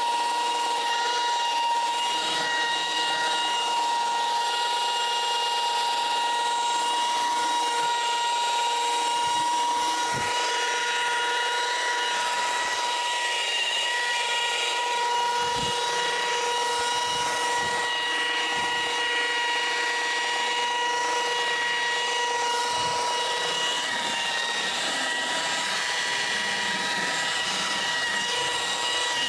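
Electric machine polisher running steadily on car paint, a constant high-pitched motor whine that holds its pitch throughout.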